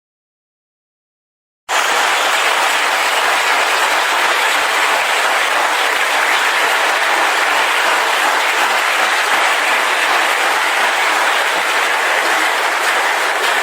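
Audience applause: many people clapping together in a dense, steady wash, starting suddenly after a short silence about two seconds in and holding at an even level.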